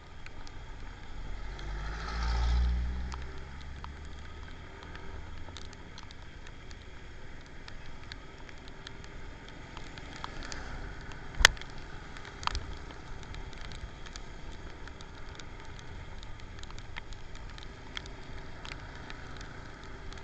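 Steady rain hiss with a vehicle passing by, swelling and fading about two seconds in. A single sharp click about halfway through and a smaller one a second later.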